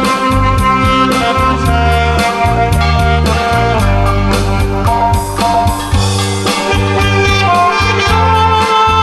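Saxophone playing a melody of long held notes over a backing track with a steady drum beat and bass line.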